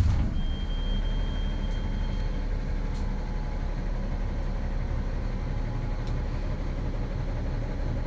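Kayoola diesel coach's engine idling steadily, heard on board, a low even drone. A thin high tone sounds for about two seconds near the start.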